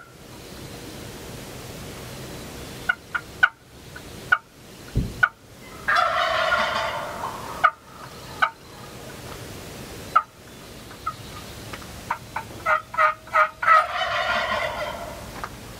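Wild turkey gobbler gobbling twice, about six seconds in and again near the end, with series of short yelping notes before each gobble.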